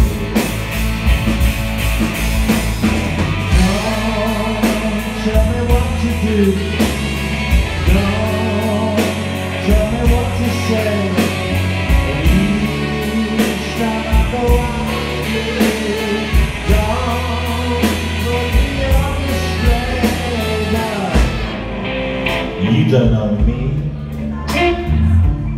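Live rock band playing: electric guitar, bass and a steady drum beat, with singing over it. About 21 seconds in the band thins out, then drum hits come back near the end.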